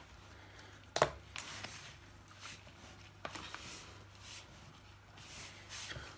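A hand squeezing and mixing crumbly pastry dough of flour, margarine and water in a bowl: soft rustling and crumbling, broken by a few sharp knocks, the loudest about a second in.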